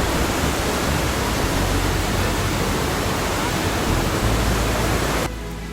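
Large waterfall rushing: a steady, dense wash of falling water. About five seconds in it cuts away to background music.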